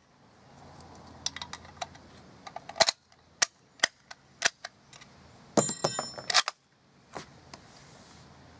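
Sporterized Enfield No. 4 Mk 1 bolt-action rifle being handled and its bolt worked: a series of sharp metallic clicks and clacks, with a short ringing metallic rattle about six seconds in. No shot is fired.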